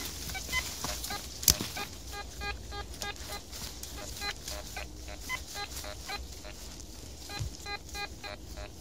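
Metal detector beeping in quick runs of short electronic tones at a few different pitches as the coil sweeps through undergrowth, signalling buried metal. A single sharp knock about a second and a half in.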